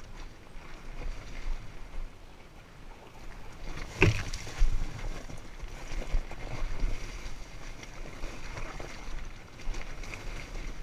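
Dirt bike rolling over a loose, rocky trail: a steady rumble and rattle with wind on the helmet-camera microphone, and two hard knocks about four seconds in as the bike strikes rocks.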